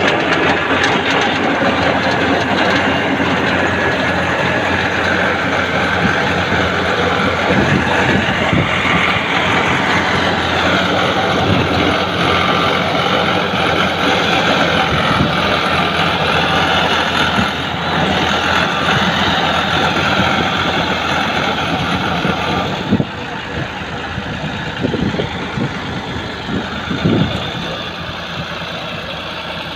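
Ford 4560 tractor engine running steadily. About three-quarters of the way through it drops in level, and a few knocks follow.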